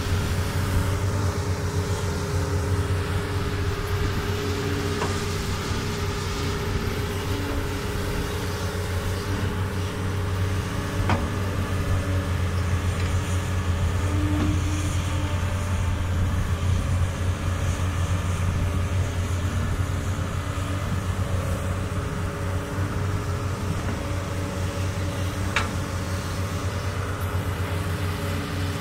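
Doosan DX200 excavator's diesel engine running steadily at working revs, with a few short knocks scattered through.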